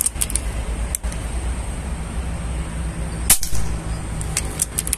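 PCP air rifle firing one lead slug about three seconds in: a single sharp crack. Light clicks near the start and near the end, with a weaker click about a second in.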